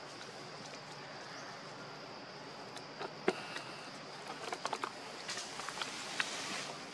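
Steady high-pitched insect drone, with a scatter of small clicks and crackles in dry leaf litter starting about three seconds in and thickening into a rustle near the end.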